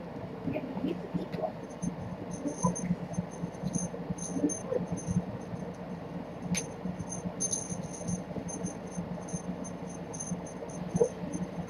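Steady low electrical hum of a quiet room, with faint high-pitched ticking and scattered soft taps and rustles from kittens moving about on a wooden floor and blankets.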